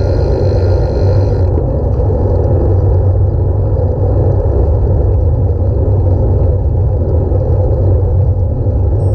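Wind buffeting a camera microphone on a moving bicycle: a loud, steady, low rumble. A fainter high hiss with a thin whine in it cuts out about a second and a half in.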